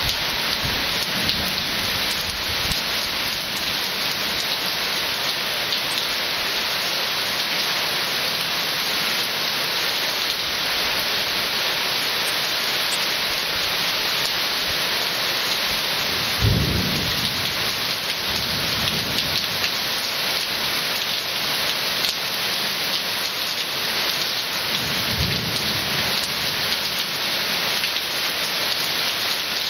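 Heavy rain falling steadily, with rumbles of thunder: the loudest about halfway through, a fainter roll a couple of seconds later, and another near the end.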